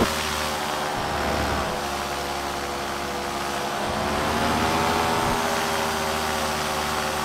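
Paramotor engine running steadily in flight, its pitch and loudness rising slightly about four to five seconds in.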